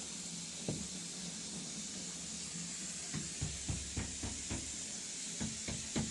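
Steady hiss with a faint low hum, a single knock about a second in, then a run of knocks from about three seconds in that settles into an even beat of about three knocks a second near the end.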